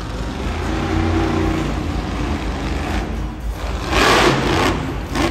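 Monster truck engine running and revving, with a louder throttle surge about four seconds in.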